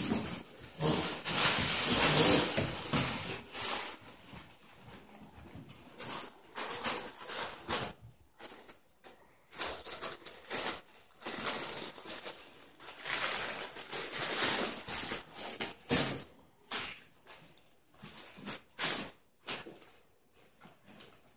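Fabric play tunnel rustling and crinkling in irregular bursts as puppies nose and push into it, with scattered short taps and clicks between.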